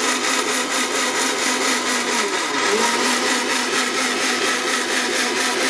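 Havells mixer grinder running steadily with a small stainless-steel dry-grinding jar, milling dried lentils into fine besan (gram flour).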